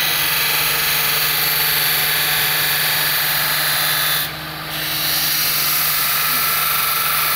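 Belt grinder running while a stainless steel digging-tool blade is pressed against the abrasive belt, giving a steady, loud grinding hiss over the motor's hum. The hiss drops away briefly a little past four seconds in as the blade comes off the belt, then resumes.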